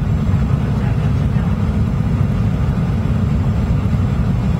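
Steady cabin noise inside a Boeing 737-800 descending on approach: a low, even rumble of its CFM56-7B turbofan engines and the air rushing past the fuselage.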